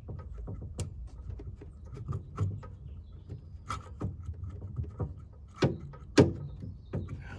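Light metal clicks and taps from a carburetor's throttle rod and linkage on an Onan Marquis Gold 5500 generator being worked by hand, with a few sharper clicks, the loudest about six seconds in, over a low rumble.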